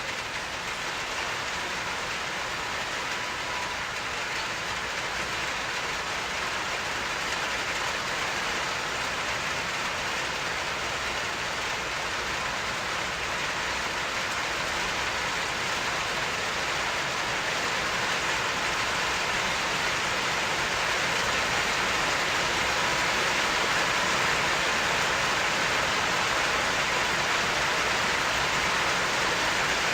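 Steady rainfall, an even hiss with no thunder or separate drips standing out, growing slightly louder toward the end.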